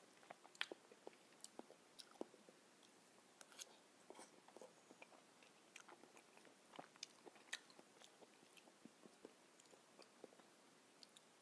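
Faint mouth sounds of someone eating soft ripe papaya from a metal spoon: irregular small clicks and smacks of chewing, with light scrapes of the spoon in the fruit.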